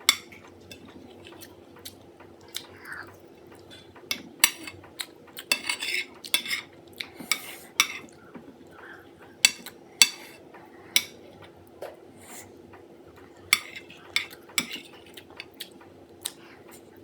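Cutlery clinking and scraping against a plate of food while someone eats, in sharp irregular clicks with a few short scrapes. A faint steady hum runs underneath.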